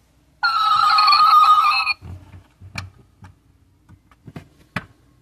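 A 1/24-scale Nissan Skyline R34 die-cast model's sound module plays a short electronic sound effect through its small built-in speaker for about a second and a half, a wavering, tinny tone. Then come several light clicks and knocks as the plastic-and-metal model is handled and lifted.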